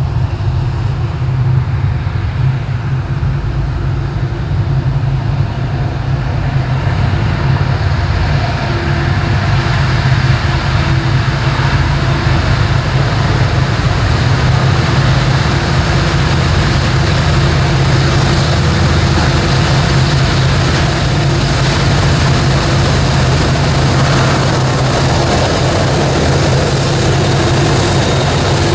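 Two Norfolk Southern diesel-electric freight locomotives running under power, a steady low engine drone that grows gradually louder as they come out of the tunnel and pass close by.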